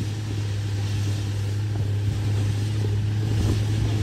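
Steady low drone of a moving vehicle, a constant hum under an even rushing noise.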